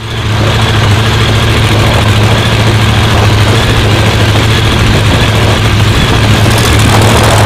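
Supercharged drag-racing engine idling loudly and steadily with a low, even note.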